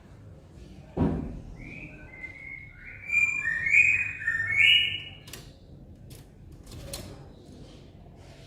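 Cililin songbird singing a short phrase of clear, stepped whistled notes lasting about two seconds, about three seconds in. A dull thump comes about a second in, and two sharp clicks follow the song.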